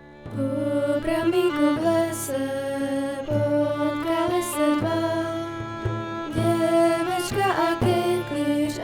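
Instrumental opening of a song starting about a quarter second in: a melody of held notes over a steady bass, with a bright accent about every two and a half seconds.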